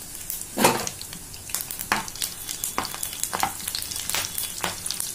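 Whole spices and green chillies frying in hot oil in a kadhai, sizzling with sharp, irregular crackles and pops; the loudest pop comes just over half a second in. This is the tempering stage, the whole spices blooming in the oil.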